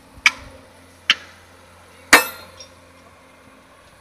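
Sharp metallic clanks of steel striking steel railway track. There are three irregular strikes about a second apart, and the third is the loudest, ringing briefly.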